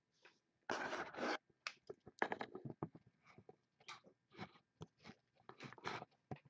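Handling noises: irregular crinkling and crunching rustles with scattered clicks, loudest in a burst about a second in.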